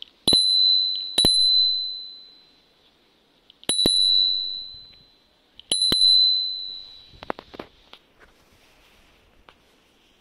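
The handlebar ding bell of an E Slide electric scooter, a Xiaomi-style bell with a spring striker, rung four times. Each strike gives one high, clear ding that fades over about a second. A few fainter clicks follow near the end.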